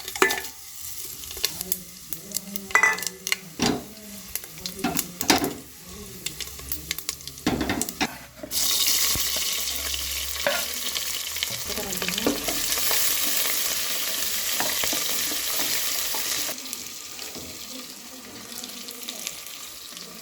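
Metal utensils clink and knock against a pan for the first several seconds. About eight seconds in, a loud steady sizzle starts as food goes into hot mustard oil, and it eases off a few seconds before the end.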